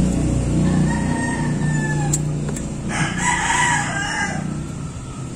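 A rooster crowing: a thinner held call about a second in, then a louder, rougher crow about three seconds in. A low steady hum runs underneath, with a couple of sharp clicks in between.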